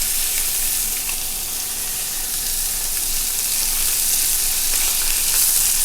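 Boneless chicken thighs sizzling skin side down in hot oil in a skillet, a steady frying hiss with a few faint clicks.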